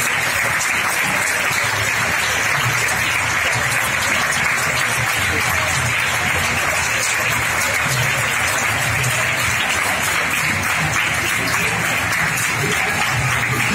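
Cinema audience applauding steadily in a standing ovation, with voices underneath the clapping.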